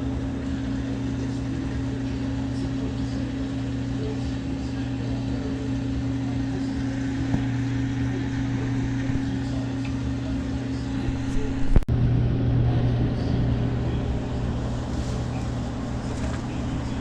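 Samsung front-loading washing machine running a cycle with a steady motor hum; a sharp click about twelve seconds in, after which the hum changes and its lower tone grows stronger.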